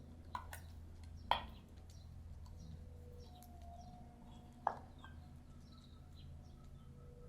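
Faint chirps of small birds over a steady low hum, with a few sharp clicks, the loudest about a second in.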